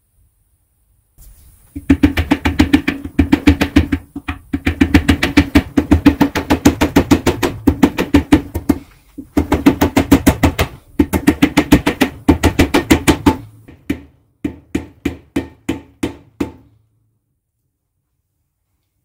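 Rapid hammer blows driving a new pinion seal into the cast nose of an M86 differential housing, about six strikes a second in several bursts with a ringing note from the metal. Near the end the blows slow to lighter, spaced taps as the seal seats just under flush.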